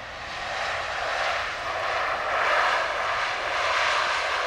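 Airbus A320neo's CFM LEAP-1A jet engines on the landing rollout, a rushing noise that swells over the first two seconds or so and then holds loud: the engines spooling up into reverse thrust to slow the aircraft.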